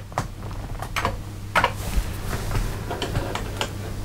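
Scattered sharp clicks and light knocks as a hand reaches across the desk and picks up and clicks the Amiga's mouse, over a low steady hum.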